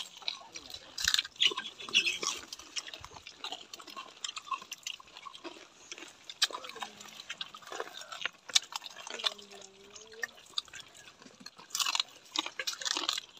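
People biting into and chewing fried bottle-gourd fritters, with scattered crunches and wet chewing noises, most clustered about a second in and near the end.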